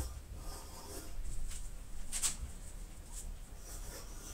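Drawing compass with a pencil lead scratching faintly as it swings circles on an MDF board, with small handling ticks and one short sharper scratch about two seconds in.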